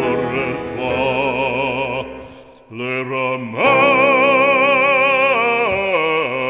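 Background music: an operatic solo voice singing with strong vibrato. It dips briefly, then holds one long note before stepping down in pitch near the end.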